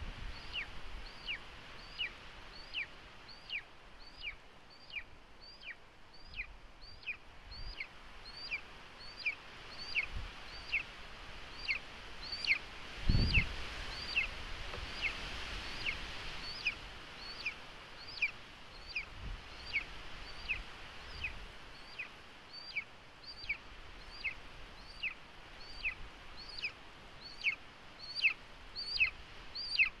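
Golden eagle chick giving thin, high begging calls over and over, about one and a half a second, each a short downward slide. A low thump comes about 13 seconds in.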